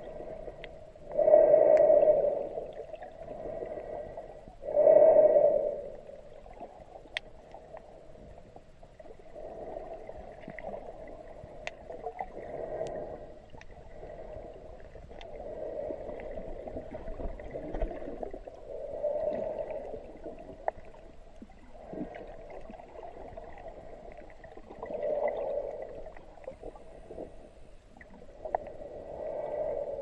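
Muffled underwater swooshing picked up by a submerged camera, swelling and fading every few seconds, with two louder surges in the first six seconds. A few faint sharp clicks sound here and there.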